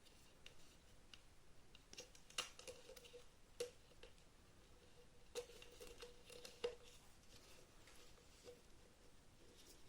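A few light, sharp clicks and taps on small hard parts, several of them leaving a brief ringing note, against near silence.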